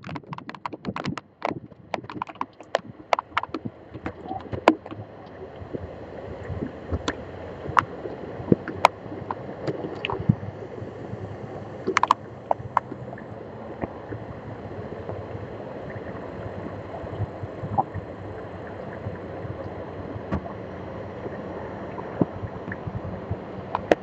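Heavy rain and strong wind beating on an outdoor webcam: raindrops striking the camera and its built-in microphone as sharp, irregular ticks over a steady rush of wind and rain. The hits come thickest in the first few seconds.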